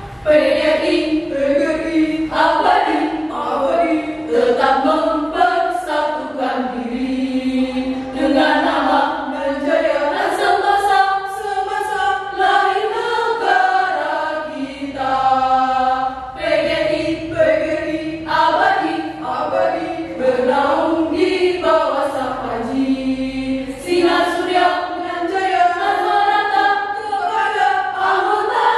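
Women's choir of about ten voices singing a song together in several parts, the lines moving in harmony without a break.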